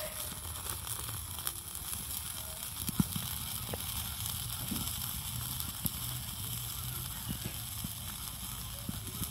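Whole fish grilling on a wire rack over glowing embers: a steady sizzle and hiss, with a few sharp crackles and pops from the fire.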